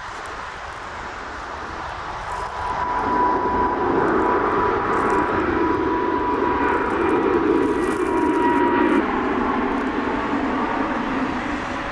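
Korean Air Boeing 787-9 Dreamliner's twin turbofan engines at takeoff power as the airliner climbs out overhead with its gear down. The engine noise swells about three seconds in, carrying a steady high whine, stays loudest until about nine seconds in, then slowly fades as the jet moves away.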